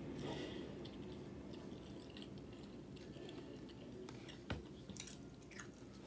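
Faint chewing of food with the mouth closed, with scattered small wet mouth clicks; one sharper click about four and a half seconds in.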